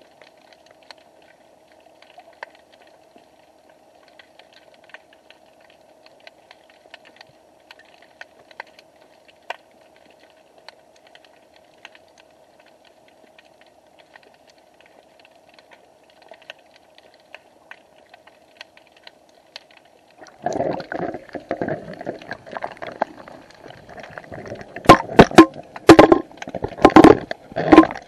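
Underwater sound picked up by an action camera's housing on the seabed: a faint steady hum with scattered small crackling clicks. About two-thirds of the way in this gives way to loud rushing water noise, with several hard knocks against the housing near the end.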